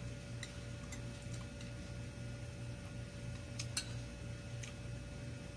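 Spoon and fork clicking lightly against a ceramic plate and bowl during eating: a few scattered ticks, the clearest a quick pair about two-thirds of the way in, over a steady low hum.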